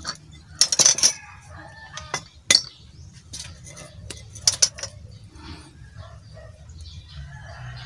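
Pieces of square steel tubing set down and shifted on a wooden workbench: a series of sharp metallic clinks and knocks, a cluster about a second in and a few single ones over the next few seconds.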